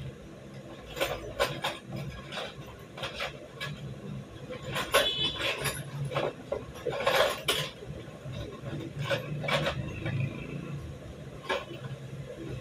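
Small metal parts and tools clinking and knocking as they are handled on a wooden workbench: scattered, irregular clicks, busier in the middle, with one short ringing clink about five seconds in.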